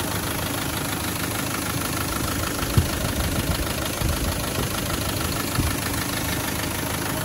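Land Rover Defender 300Tdi 2.5-litre four-cylinder turbodiesel idling steadily at running temperature, heard up close with the bonnet open. It runs evenly with no unusual noises, a sign of a healthy engine. There is a single brief thump about three seconds in.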